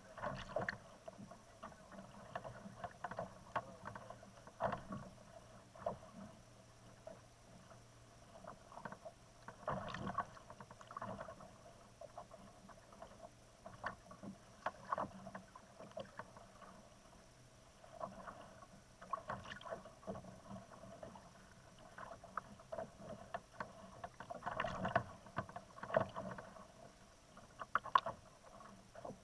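Small waves lapping and slapping irregularly against a plastic sit-on-top kayak's hull, in uneven short splashes that come thicker near the end.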